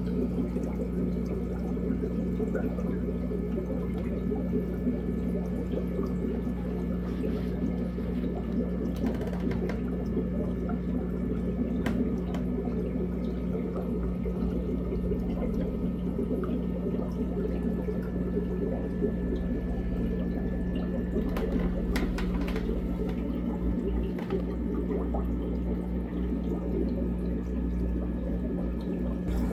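Aquarium water bubbling and trickling over a steady low hum, typical of an air line or filter running in the tank. A few faint clicks fall in the middle.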